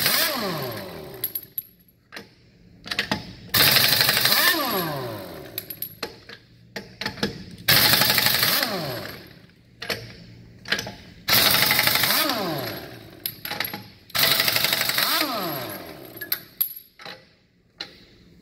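Air impact wrench hammering the lug nuts loose on a semi truck's steer wheel. It runs in five bursts of about a second and a half, roughly every three and a half seconds, each opening with a falling whine. Short metallic clicks fall between the bursts.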